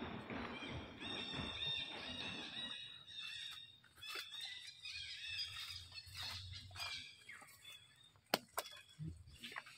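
High, wavering animal calls for the first few seconds, followed by scattered short clicks and taps, with one sharp click near the end.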